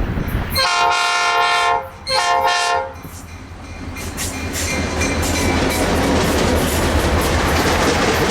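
Locomotive's new-cast Nathan P5 five-chime air horn sounding a chord in two blasts, a longer one about half a second in and a shorter one a moment later. The train then rolls past with a steady rumble and the clatter of wheels over the rails.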